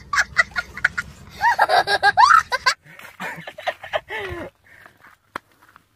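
A young child laughing hard in quick repeated bursts, then longer high wavering vocal sounds; fainter voices and laughter follow after about three seconds.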